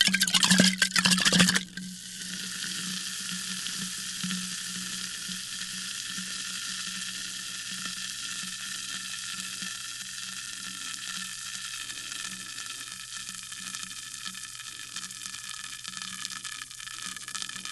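Sparkling water fizzing, with a loud, dense crackle of bubbles for about the first second and a half, then a steady fizz of small bubbles popping.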